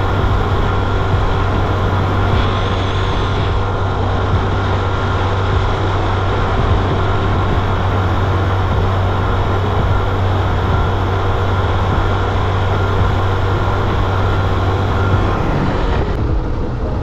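Car driving along a highway: a steady engine hum under road and wind noise, which drops off sharply about a second before the end.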